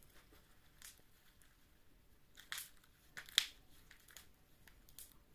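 Runny slime being stretched and squeezed by hand, giving faint scattered clicks and crackles, the two loudest a little past the middle.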